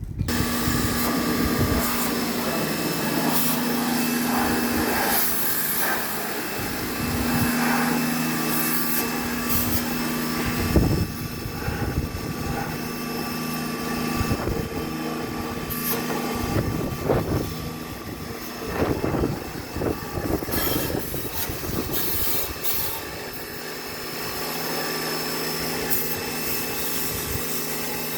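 Electric pressure-washer jet pump running steadily with a hum and a hiss, starting abruptly. Scattered knocks and rattles are heard over it midway.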